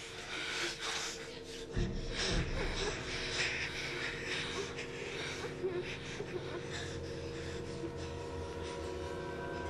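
Heavy, gasping, wheezing breaths from a person in a struggle, fading out after the first few seconds, with a low thump about two seconds in. A sustained film-score drone of held tones runs underneath.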